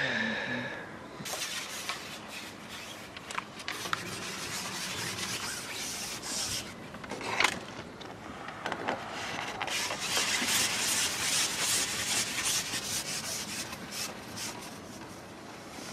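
Rubbing and scraping of fishing tackle being handled: a maggot bait box and a long carbon fishing pole. A few sharp clicks come through, and the rubbing grows louder in the second half.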